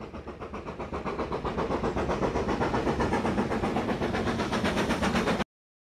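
Steam locomotive chuffing in a fast, even rhythm of about six beats a second. It grows louder over the first two seconds, then cuts off abruptly near the end.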